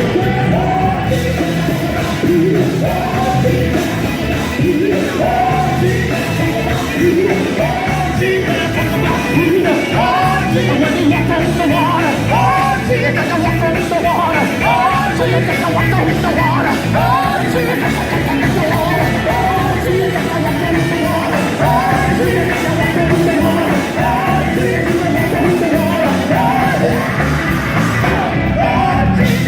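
Gospel quartet singing live with band accompaniment, the lead voice pushed to a shout over the backing singers and instruments.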